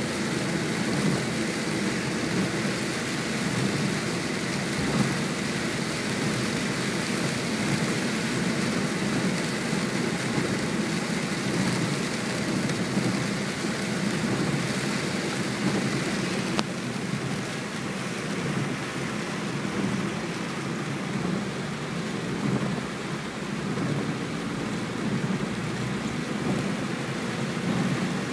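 Heavy rain beating on a car's windscreen and roof, heard inside the cabin, over the steady low rumble of tyres on a wet road. The higher hiss of the rain eases a little a little over halfway through.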